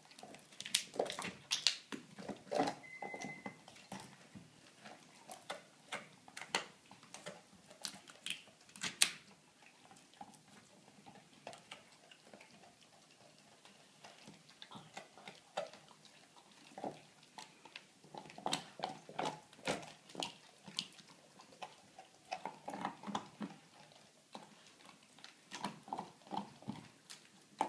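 Black Labrador gnawing a veal leg bone: irregular sharp cracks and clicks of teeth on bone, in busy spells with a quieter stretch in the middle. The loudest crack comes about nine seconds in.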